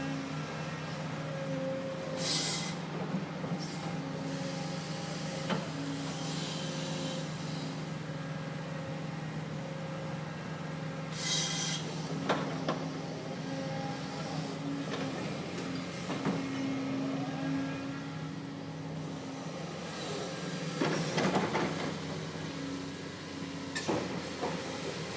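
Doosan DX300 excavator's diesel engine running steadily under work. Two short hisses, one about two seconds in and one about eleven seconds in, and several knocks and clanks, the busiest cluster near the end.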